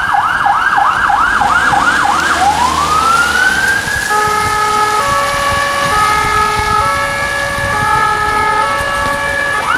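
Police patrol car siren on an emergency run. It starts on a fast yelp of about three sweeps a second, switches about two seconds in to a slow rising wail that levels off and holds, and a two-tone hi-lo pattern alternating about once a second sounds over the held tone. The fast yelp comes back right at the end.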